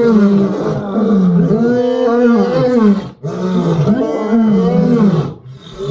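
Lions roaring: a run of drawn-out calls, each rising and then falling in pitch, with two short breaks, about three seconds in and near the end.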